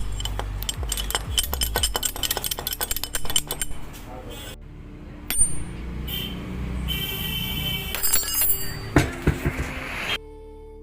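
Rapid metallic clicking and clinking of hand tools on the car's wheel for about four seconds, then scattered knocks and clatter. Music comes in near the end.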